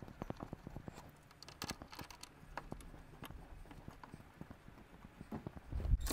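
Light, irregular metallic clicks and ticks as steel brake-line flare nuts are handled and threaded by hand into the brake proportioning valve. Near the end a cordless ratchet starts running loudly, driving in one of the valve's 10 mm mounting bolts.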